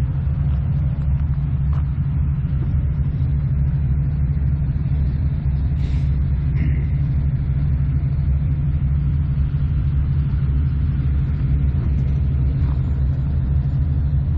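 Diesel engines of a set of freight locomotives running steadily with a low rumble, throttled down after working.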